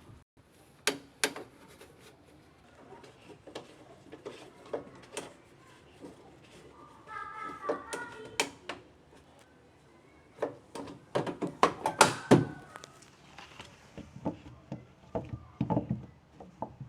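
Irregular clicks and knocks of hands-on work, thickest about eleven to thirteen seconds in, with a short pitched sound near the middle.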